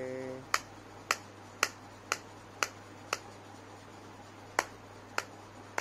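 Kitchen knife slicing a peeled banana into small rounds on a plate, the blade clicking against the plate with each cut, about two clicks a second, with a pause of over a second just past halfway.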